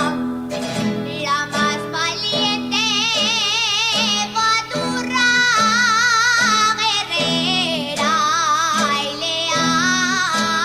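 A woman singing an Aragonese jota in full voice over plucked guitar accompaniment. She holds long, high notes with a wide vibrato and breaks briefly between phrases, while the guitars keep a steady pattern of repeated low notes.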